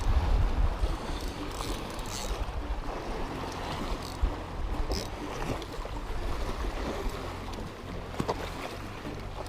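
Wind buffeting the microphone with a low rumble over the wash of sea water at the shoreline, broken by a few faint clicks and knocks.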